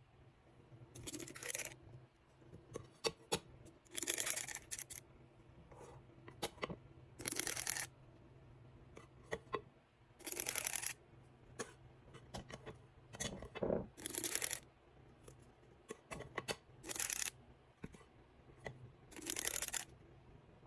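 A spring-loaded metal scoop working through thick white cake batter and dropping it into paper liners in a metal muffin tin: about seven short scraping swishes a few seconds apart, with small metal clicks from the scoop between them.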